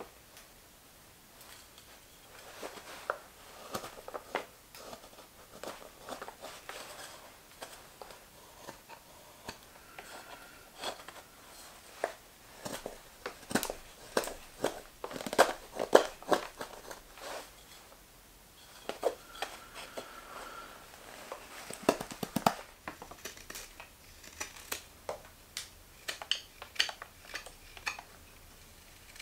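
Straight carving knife slicing shavings off a green maple spoon handle: irregular crisp cuts and scrapes, one after another, busiest in the middle of the stretch, with a quick run of short strokes a little later.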